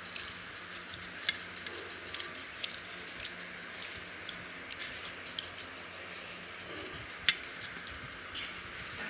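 Hands mixing rice and curry on steel plates: scattered light clicks and taps against the metal, with two sharper clicks, one about a second in and one near the end, over a steady hiss.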